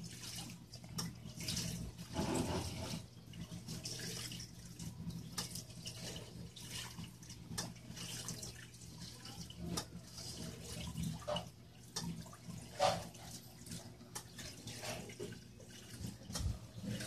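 Reef aquarium water trickling and splashing unevenly, over a steady low hum.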